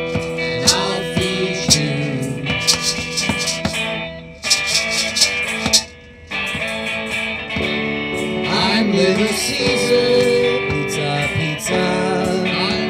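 A band playing a song, with sharp percussive hits in the first few seconds; the music drops away briefly twice around the middle.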